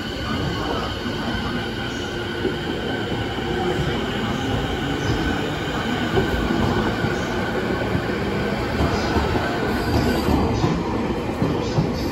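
JR East 209 series electric train cars running slowly past at close range. The wheels rumble on the rails under a steady high-pitched tone, and sharp rail-joint clicks come in near the end.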